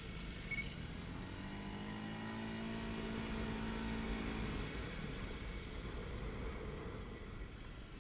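ATV pulling up out of a muddy pond. A steady motor drone rises about a second in, holds for a few seconds, then falls away, over low outdoor rumble.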